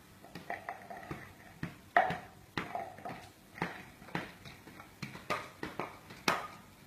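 Irregular light knocks and taps, about two or three a second, some with a brief ring, as a tin can and other toys are handled and bumped on a bamboo floor mat.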